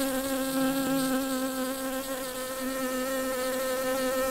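A bee buzzing in one steady, droning hum that wavers slightly in pitch.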